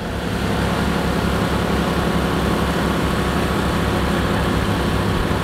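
Motorboat engine running steadily at speed, with the rush of wind and water as the boat moves fast.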